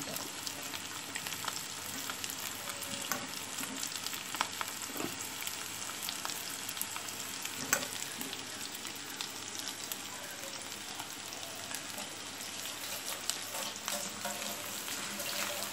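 Potato slices shallow-frying in oil in a non-stick pan: a steady sizzle with scattered small crackles and pops.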